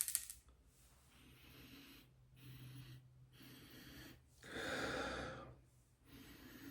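A man sniffing at a bottle of beard oil: a series of nasal sniffs and breaths, about five in all, the longest and loudest a little past the middle.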